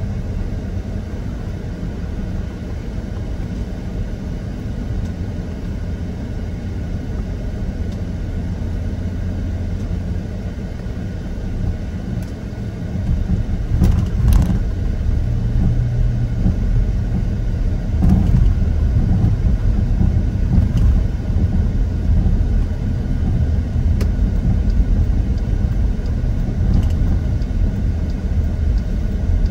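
Steady low vehicle rumble picked up by a dash cam, growing louder about halfway through, with a few faint clicks.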